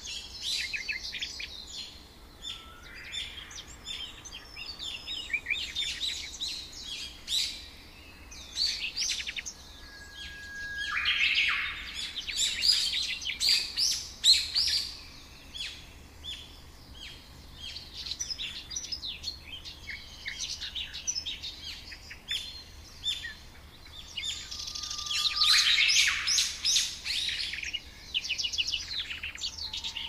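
Several small birds chirping and singing together, a dense chorus of quick high chirps and trills, louder in clusters about midway and near the end, with a couple of short, thin steady whistles.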